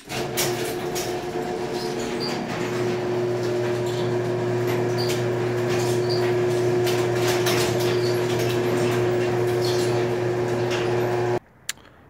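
Craftsman half-horsepower chain-drive garage door opener running as it closes the door: a steady motor hum with the chain and door rattling and clicking throughout, cutting off suddenly near the end.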